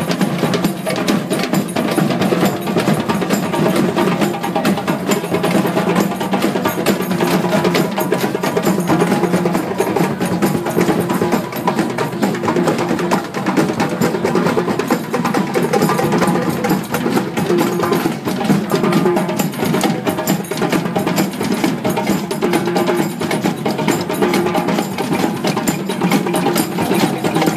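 A drum circle: many hand drums, tall wooden djembe-style drums and frame drums among them, beaten together in a dense, unbroken rhythm with sharp wood-block-like clacks on top.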